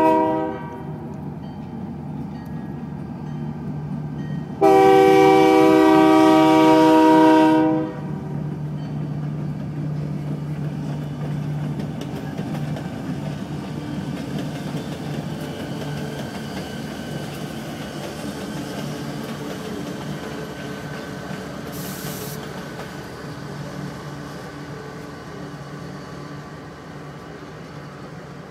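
Diesel locomotive air horn sounding a multi-note chord: the tail of a short blast right at the start, then one long blast of about three seconds beginning about five seconds in. Between and after the blasts the locomotives' diesel engines rumble steadily as they approach, with a short hiss a little past the middle. The rumble fades toward the end.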